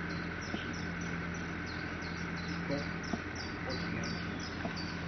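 Garden ambience with a steady run of short, high chirps, about three to four a second, over a low, even hum.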